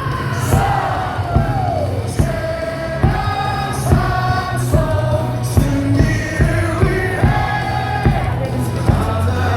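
Baseball crowd singing a cheer song along with music from the stadium speakers, with yells and whoops over a steady beat.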